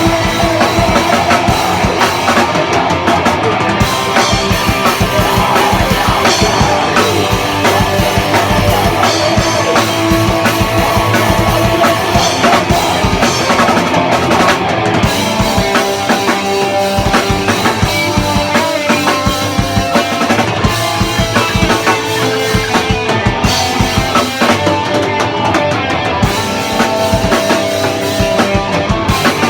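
Rock music with a drum kit and guitar playing steadily throughout.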